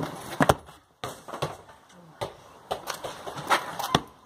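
Footsteps and scuffs on concrete close to the microphone, with a few sharp knocks as a football is set down on the ground.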